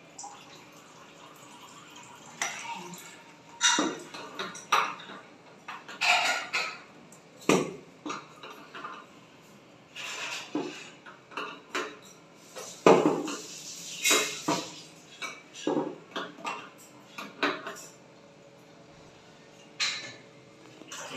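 Irregular clicks and clanks of plumbing fittings and a braided flexible hose being handled while the water heater's outlet is connected, with the loudest knocks about two-thirds of the way in.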